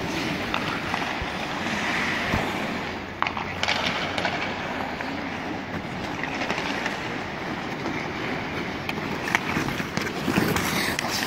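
Ice hockey skates scraping and carving on the ice, with a few sharp clacks of sticks striking the puck.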